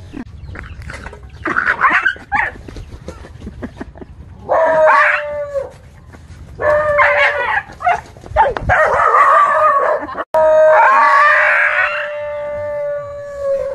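A dog barking in short bursts, then howling in long, steady-pitched calls, the longest near the end.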